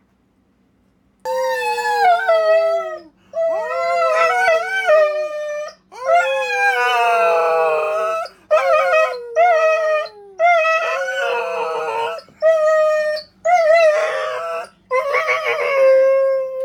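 A small dog howling: about nine long, wavering howls in a row, each up to two seconds long, several sliding down in pitch as they end.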